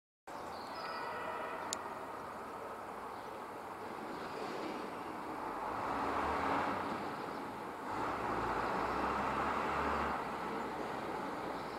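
ChME3 diesel shunting locomotive running as it approaches, its engine growing louder from about halfway in. A single short click sounds near the start.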